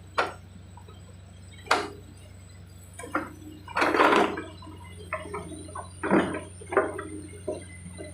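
Mini excavator engine running with a steady low hum, with irregular clanks and knocks from the track work and a short rushing noise about four seconds in.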